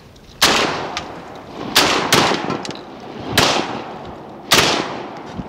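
Shotguns firing at ducks: five shots over about four seconds, two of them in quick succession, each trailing off in an echo.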